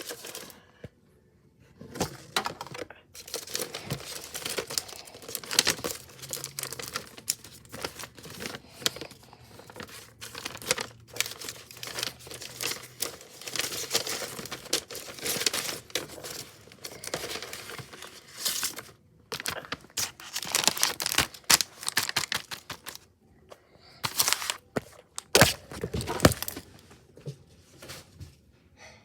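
A window blind being cleaned: a continuous run of irregular rustling, scraping and rattling, with a few louder knocks near the end.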